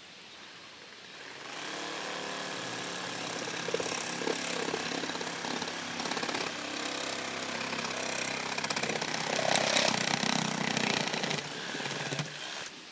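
Reciprocating saw starting up about a second in and cutting through a septic system vent standpipe, running steadily until it stops just before the end.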